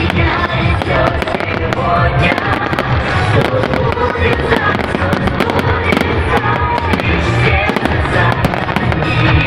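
Fireworks display: a rapid run of bangs and crackles over a continuous rumble, with music playing.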